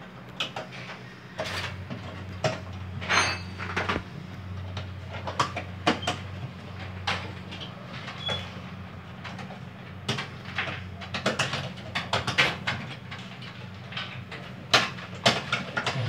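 Irregular clicks and clatters of plastic parts being handled and pressed together as the washing machine's clutch cam set and its spring are fitted onto the drive shaft, over a steady low hum.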